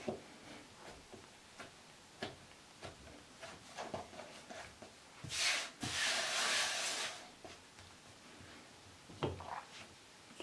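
Hands pressing and patting a soft cookie dough on a floured countertop, with small soft knocks. About five seconds in, a hand sweeps dusting flour across the countertop for about two seconds, a rubbing hiss that is the loudest sound. A few thuds come near the end.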